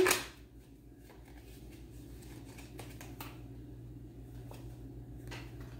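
Faint clicks and taps of tarot cards being handled and drawn from the deck, the clearest about five seconds in, over a steady low room hum.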